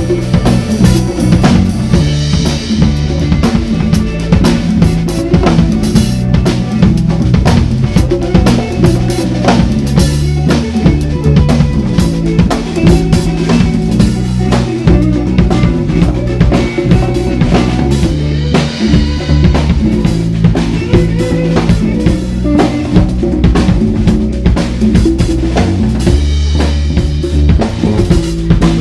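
Live band music: a drum kit and congas keep a busy, steady beat over electric guitar and a bass line.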